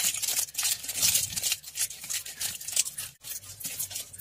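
Aluminium foil crinkling and crackling in irregular rustles as it is wrapped around a dish.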